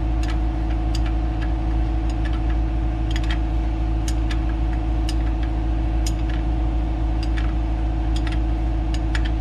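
A steady low mechanical hum, like a motor running nearby, with scattered light clicks and ticks of metal parts and tools being handled.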